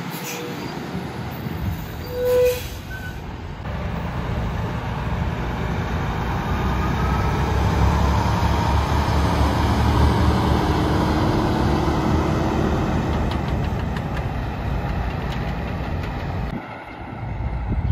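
Diesel tractor-trailer engines: a brief squeal about two seconds in, then a semi's engine rumbling as it pulls out and passes close by, loudest near the middle and easing off as it drives away.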